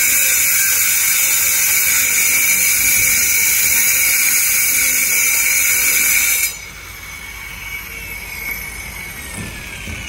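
Electric angle grinder with a diamond blade cutting into concrete: a loud, steady, high-pitched grinding hiss. About six and a half seconds in it cuts off and the blade spins down with a falling whine.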